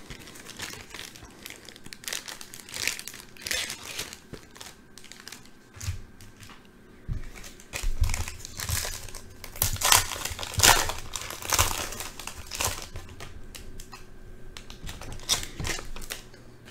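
Foil trading card pack wrapper crinkling as it is handled and torn open, in irregular crackles throughout.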